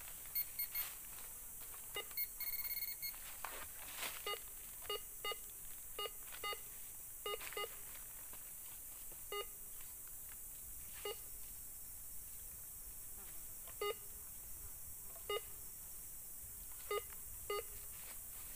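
Metal detector sounding short, pitched beeps at uneven intervals, with one longer tone about two seconds in, as its coil sweeps over a dug hole. The beeps are its target signal for metal in the hole. They come thick in the first several seconds and then only now and then.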